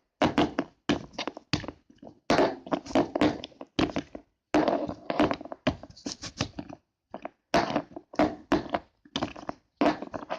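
Small plastic Play-Doh tubs being handled and stacked, knocking against each other and the table in a long irregular series of short taps and knocks.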